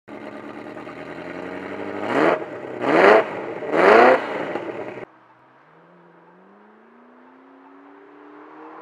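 A car engine revved hard three times in quick succession, each rev a sharp rising blip, cutting off abruptly about five seconds in. Then a fainter supercar engine accelerating, its pitch rising steadily.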